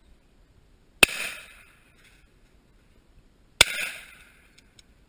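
Two shotgun shots, about two and a half seconds apart, each a sharp crack followed by a short echoing tail.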